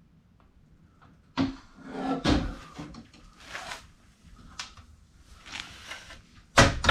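A series of knocks, clunks and scrapes from objects being handled, with sharp knocks about a second and a half in, around two and a half seconds, and near the end.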